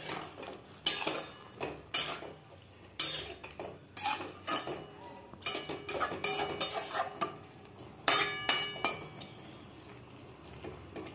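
A flat metal spatula scraping and knocking against a metal kadai as a wet vegetable curry is stirred: irregular scrapes and clanks, one clank about eight seconds in leaving the pan ringing briefly. The stirring quietens near the end.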